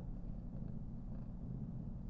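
Somali cat purring steadily, a low, even rumble, content while being stroked.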